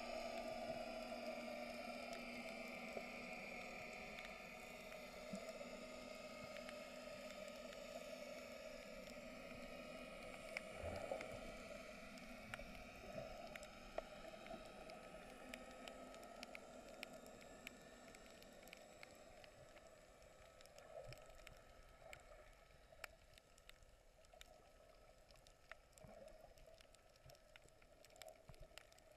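Faint underwater sound picked up by a submerged camera: a low steady hum with scattered small clicks and crackles, fading gradually.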